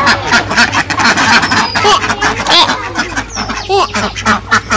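A flock of domestic ducks quacking in many overlapping short calls as they crowd together, over a steady low hum.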